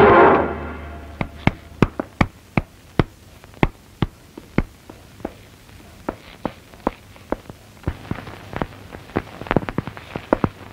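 Brass orchestral film score fades out at the start, then footsteps of hard-soled shoes on a hard floor: sharp, separate steps about two a second, uneven in spacing and loudness.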